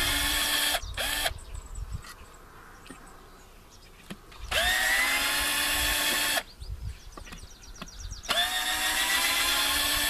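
Electric power drill running in three bursts of about two seconds, each spinning up quickly to a steady whine, driving screws into wood.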